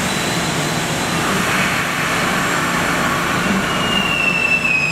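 MBTA Red Line subway train of CRRC-built cars pulling into an underground station: a steady rumble of wheels on rails, with a high-pitched squeal starting about four seconds in and falling slightly in pitch.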